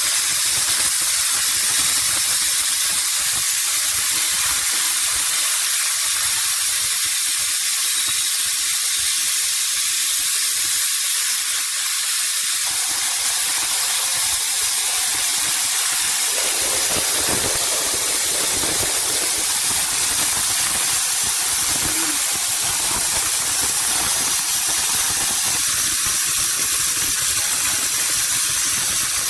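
Loud, steady hiss of compressed air rushing through a plasma cutting torch, running on without a break.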